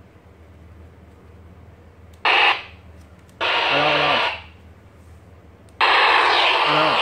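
Baofeng BF-888S handheld radio's speaker letting out three bursts of loud static hiss, a short one then two longer ones, each switching on and cutting off abruptly as the radio's buttons are pressed, with no voice coming through.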